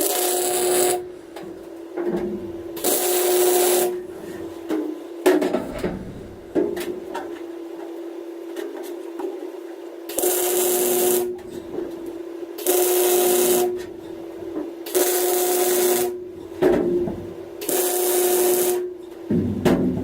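MIG welder stitch-welding an 18-gauge sheet-steel floor panel: six crackling bursts of about a second each, over a steady hum. A few sharp knocks sound between the bursts.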